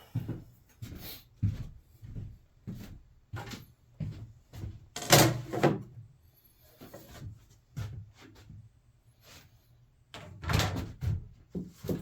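Irregular knocks and clunks of a wooden jig and tools being handled and set on a tabletop, with a louder cluster about five seconds in and again near the end.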